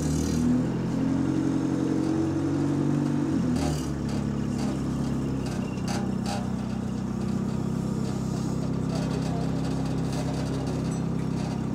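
Bus diesel engine heard from inside the bus, its note rising for about three and a half seconds as the bus pulls along, then dropping at a gear change and settling into a steady drone. There are a couple of short rattles. The bus is running in limp mode without kickdown, with shaking parts to the engine.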